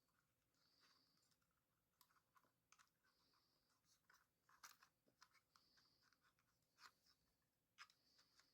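Faint, scattered small clicks and taps from handling small drone parts and tools during the hinge repair, with a few brief faint high squeaks.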